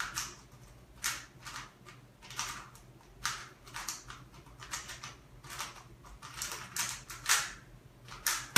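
A 3x3 speedcube (Rubik's Cube) being turned fast during a timed solve: bursts of rapid clicking and rattling layer turns, several a second, with short pauses between. A sharp knock near the end.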